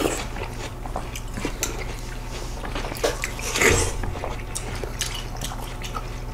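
Bites into and chewing of juicy seedless watermelon close to the microphone: wet crunches and mouth clicks, with a louder bite about three and a half seconds in.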